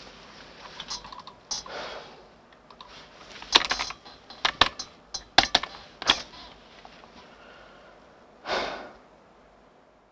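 Typing on a computer keyboard: irregular key clicks, bunched together in the middle, with a short rushing noise near the end.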